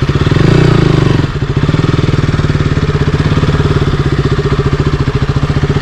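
200 cc single-cylinder motorcycle engine running at low revs with a steady, fast exhaust pulse, a little louder for about the first second before settling.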